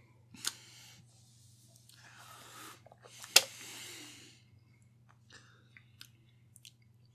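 Quiet mouth and breath sounds of someone tasting a soda: swallowing and slow breaths out through the nose, with one sharp lip smack or click about three and a half seconds in, then a few small clicks.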